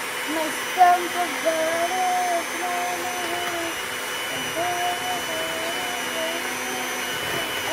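Electric hand mixer running steadily, its beaters turning through a thick mixture in a bowl, with a child's voice wavering over the motor.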